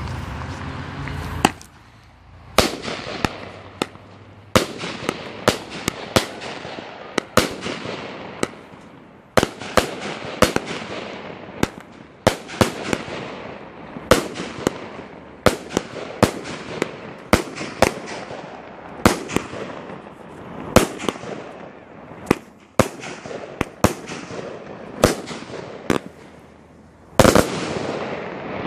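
'A Girl Next Door' consumer firework firing shot after shot, roughly one to two a second, each a sharp bang followed by a hiss that fades away. Near the end comes a longer, louder burst lasting about a second.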